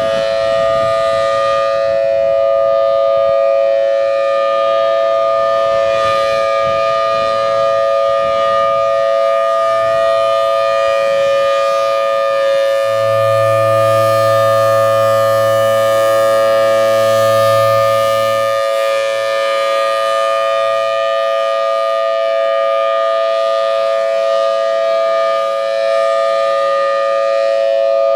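Federal Signal Thunderbolt 1003 tornado siren sounding at full speed: a loud, steady two-note chord that holds its pitch without winding up or down. A low hum joins for about five seconds in the middle.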